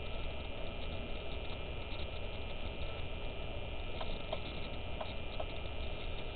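Steady hiss and electrical hum from the built-in microphone of a light-bulb hidden camera, with a few faint, short ticks a little past halfway.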